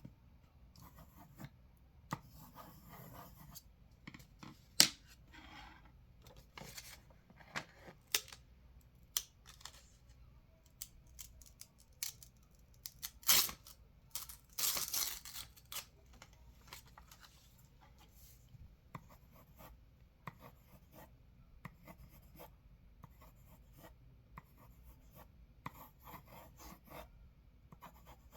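Pencil scribbling on paper: scratchy strokes of uneven length with scattered sharp taps, the longest and loudest strokes a little before halfway through.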